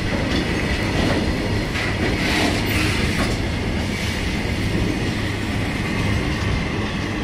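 A train running past on the track: a steady rumble of wheels on rails with occasional clicks of clickety-clack and a thin, steady high whine.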